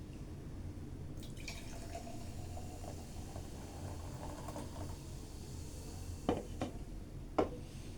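Energy drink being poured into a glass, the pour rising in pitch as the glass fills, followed by a few sharp knocks near the end.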